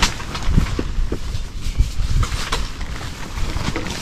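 Gusty wind rumbling on the microphone, with the nylon fabric of an SUV tent rustling and crinkling in short bursts as it is worked over a vehicle's rear hatch.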